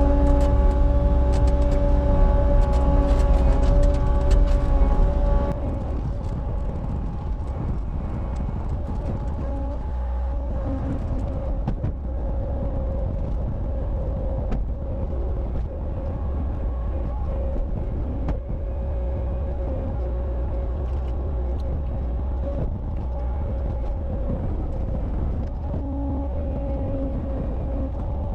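Cat 279 compact track loader's diesel engine running steadily. About five seconds in its note drops and it settles into a quieter, steady run.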